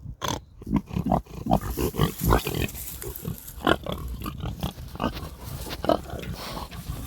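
Pigs grunting in a quick, uneven run of short low grunts, with a sharp click just after the start.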